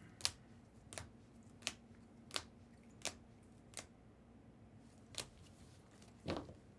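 A row of faint, sharp clicks, about one every 0.7 seconds, with a short gap near the middle, over a faint steady hum.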